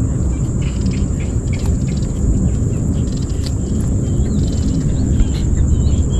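Wind buffeting the microphone in a steady low rumble, with small birds chirping faintly and a steady thin high-pitched whine over it.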